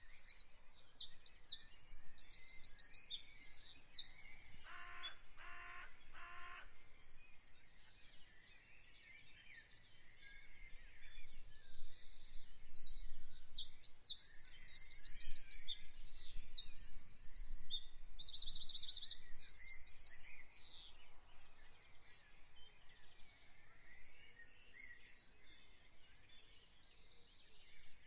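Songbirds singing: many high, quick trills and chirps overlapping throughout, with three short lower calls about five seconds in.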